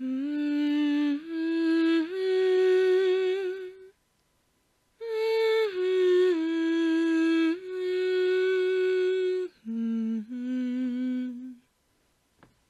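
Slow, wordless melody of long held notes moving in steps, in three phrases with short pauses between them; it stops shortly before the end.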